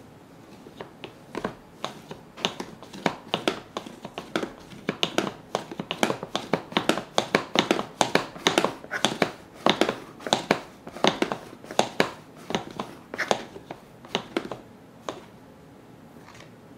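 Takara Tomy Kurunde Korokoro Odango Party toy: its plastic bunny-shaped lid is worked back and forth over the base to roll dango dough into balls, giving a run of uneven plastic clicks and clacks, about three a second. The clicking starts about a second in and stops near the end.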